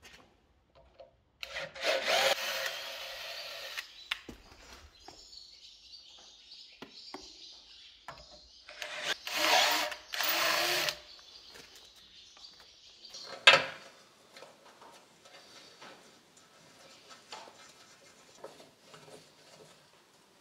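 Handheld electric drill boring a hole into the metal frame of a tractor implement, in two runs of about two seconds each. A single sharp clack follows a little past the middle.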